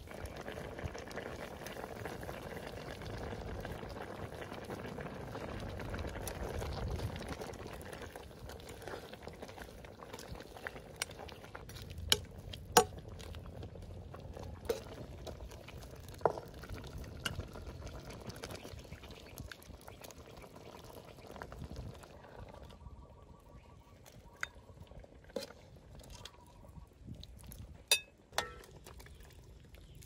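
Steady watery noise, strongest in the first several seconds and fading later, with a few sharp clicks and knocks scattered through.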